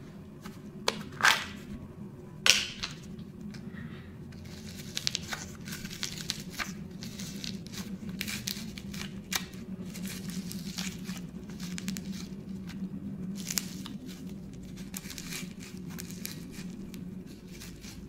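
Plastic packaging tearing and crinkling as a slime container is unwrapped and opened: two short, loud rips about a second and two and a half seconds in, then a long run of fine crackling as it is handled.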